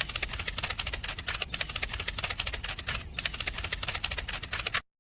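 A fast, even run of mechanical clicks or rattling, with two brief breaks, cutting off abruptly just before the end.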